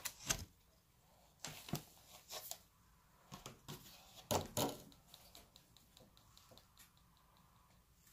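Clear plastic tub and lid being handled and set down on a newspaper-covered table: a string of light plastic knocks and crinkles in the first five seconds, loudest near the start and about four and a half seconds in, then only faint ticks.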